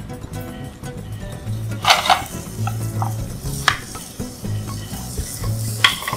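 Shrimp sizzling in olive oil in a hot grill pan while a spatula stirs and turns them. A few sharp scrapes of the spatula against the pan come about two seconds in, near four seconds, and near the end.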